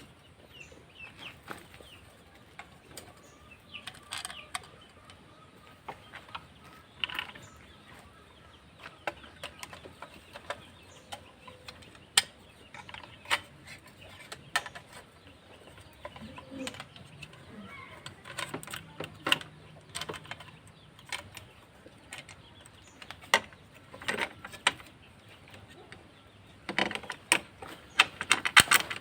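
Irregular clicks and metallic knocks of hand tools and parts as a snail horn is mounted on a motorcycle, with a louder run of knocks near the end.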